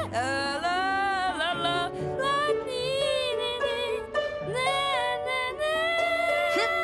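A cartoon boy's voice singing a melody with sliding, wavering notes over musical accompaniment.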